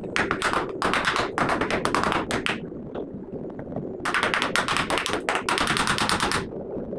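A small mallet tapping quickly on the metal housing of a rewound water cooler motor, about six light taps a second in two runs with a pause between, seating the end cover. A steady low hum runs underneath.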